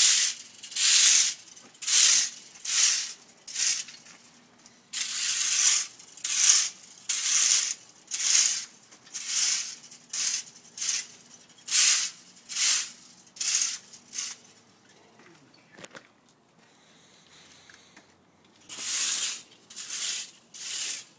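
Leaf rake dragged back and forth through damp sand over the glass bottoms of buried bottles, one scraping stroke about every second. The strokes stop for a few seconds past the middle, then three more come near the end.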